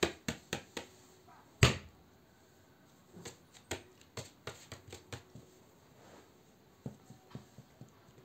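Light taps and clicks of fingers on a paper sheet and on small plastic slime tubs as they are handled, in two loose runs of quick taps, with one much louder knock about a second and a half in.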